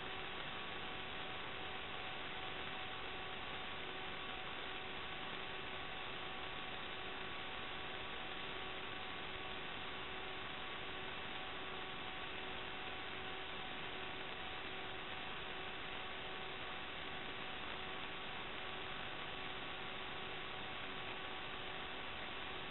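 Steady electronic hiss with several faint, constant hum tones, unchanging throughout: noise on the SD DVR recorder's audio track, with no live sound picked up.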